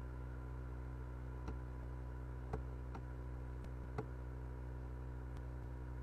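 A few sharp, irregularly spaced clicks from the pointing device used to write on screen, over a steady low hum of room tone.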